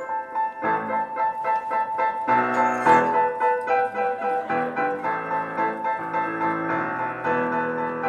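Piano music: a quick, repeated high note over changing lower chords, growing fuller about half a second in.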